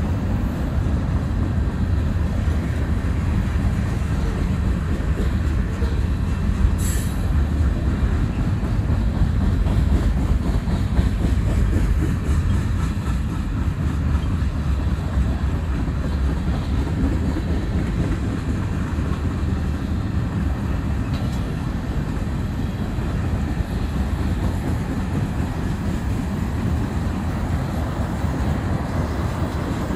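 Freight cars of a long mixed freight train (covered hoppers, gondolas and tank cars) rolling past: a steady low rumble of steel wheels on the rails, with a brief high-pitched sound about seven seconds in.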